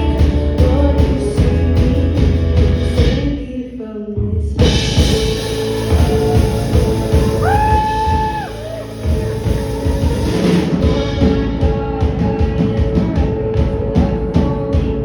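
Live rock band with drum kit and a singer playing an original song. About four seconds in the band drops out briefly, then crashes back in with a wash of cymbals and a held sung note, settling into a steady drum beat.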